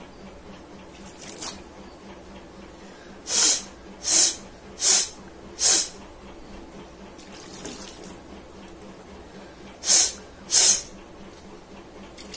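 A woman rinsing her nose with water and blowing it out hard: six short, sharp blasts, four in quick succession and then two more, with water sounds between.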